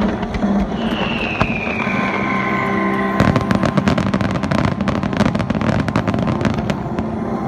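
Fireworks: a whistle falling in pitch about a second in, then a dense run of crackling bursts for about four seconds.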